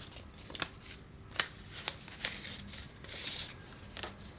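Kraft paper and card being handled: a few crisp snaps and rustles spread out, the sharpest about a second and a half in, with a longer rustle around three seconds in.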